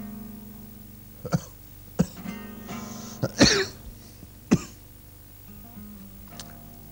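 Acoustic guitar music, with a man coughing sharply about five times between one and five seconds in, the loudest cough about halfway through.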